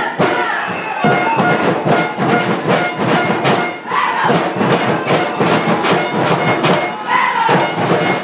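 Loud music with a steady beat of drumming or percussion over a crowd at a football game. Two short shouts rise in pitch about four and seven seconds in.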